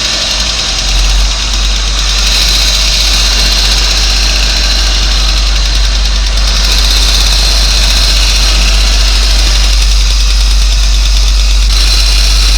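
Diesel engine running steadily, with a fast, even clatter over its hum.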